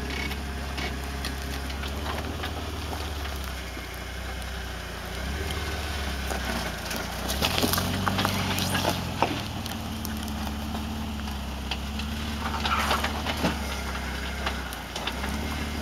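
Jeep Wrangler Rubicon engine running at low crawling speed, picking up a few times as it works over rocks. Sharp cracks and crunches come from tyres and underbody on rock, clustered in the middle of the clip and again near the end.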